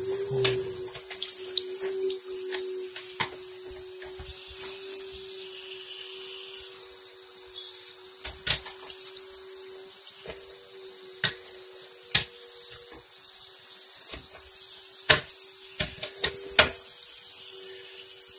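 Scattered sharp clicks and knocks of a metal hand tool against faucet fittings as they are tightened, about a dozen spread irregularly and bunched in the second half, over a steady hum.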